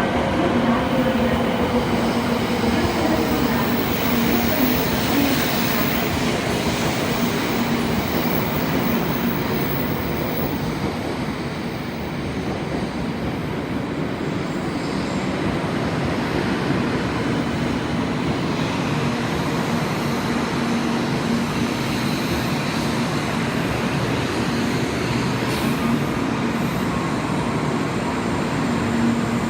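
Shinkansen train moving at the station platform: loud, steady running noise with a steady hum underneath.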